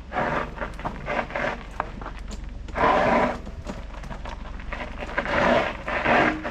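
Mountain bike riding over a rough, loose dirt trail: irregular surges of tyre and trail noise, with many small knocks and rattles from the bike.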